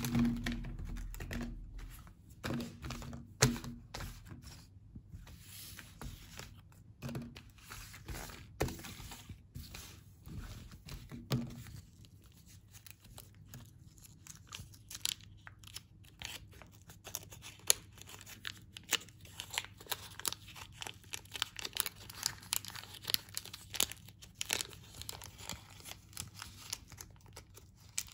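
Thin plastic film wrappers on bars of plasticine crinkling and tearing as they are peeled open by hand, in many quick crackles. In the first dozen seconds a few soft knocks come as the wrapped bars are set down on the countertop.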